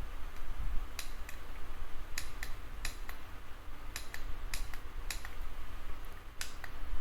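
A string of irregular sharp clicks and taps, roughly two a second, over a low handling rumble: small hard objects being handled.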